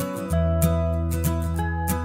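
Guitar-led background music, with a deep bass note that comes in just after the start.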